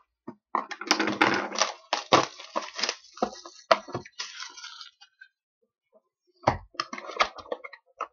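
A hockey card box and its packaging being torn open by hand: crinkling plastic, cardboard rustling and sharp clicks in bursts. There is a pause of about a second and a half past the middle, then more crinkles and clicks.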